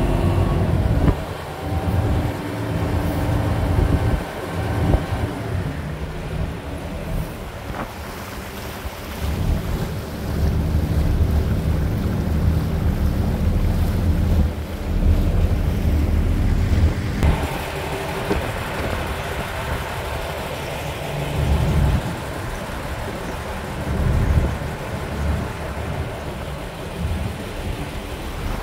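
Car ferry's diesel engine running with a steady low hum, under heavy wind buffeting on the microphone. From a little past halfway, a rushing of water joins in.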